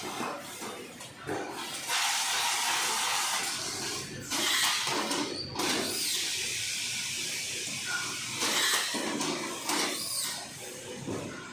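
Carton sealing and baling machine working: repeated bursts of hissing noise, the longest lasting about two seconds, mixed with clicks and knocks.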